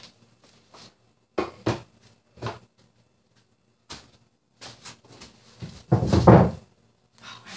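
Scattered knocks and clunks from old kitchen cabinetry being pried and pulled loose during demolition, with a heavier thump about six seconds in.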